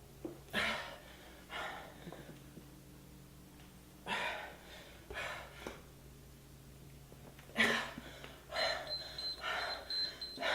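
Heavy breathing after a hard workout, a handful of loud gasping breaths. About eight and a half seconds in, an electronic beeper starts a steady run of rapid high beeps.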